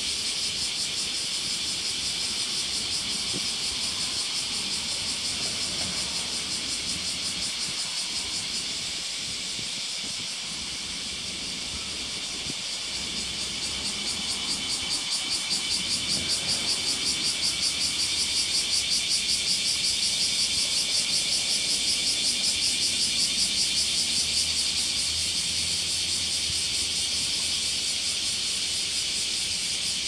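High-pitched insect chorus: a steady, shrill drone with a fast, even pulse. It dips briefly about ten seconds in, then swells louder again.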